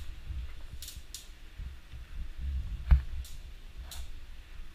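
Low rumbling handling noise from a camera being carried about, with a few light clicks and one sharp knock just under three seconds in.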